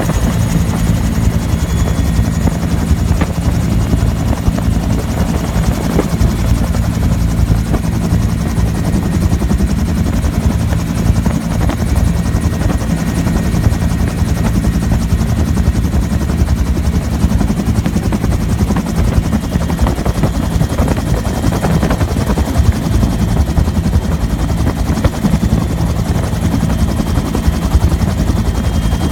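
Bell UH-1 Huey helicopter running steady and loud from inside its open cabin, the two-bladed main rotor beating over the turbine, as it descends to land.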